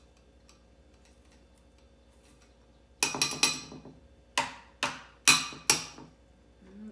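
Metal microplane grater knocked against the rim of a small china saucer about seven times, giving sharp clinks, as grated garlic is cleared off the grater. The clinks start about three seconds in: three close together, then four spaced about half a second apart.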